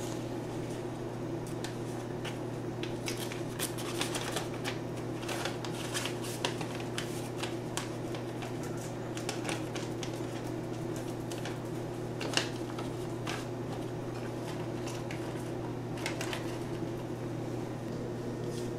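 Paper coffee filter rustling and crinkling in the hands, with many small irregular crackles, as it is separated from the stack and pressed into a drip coffee maker's filter basket. A steady low hum runs underneath.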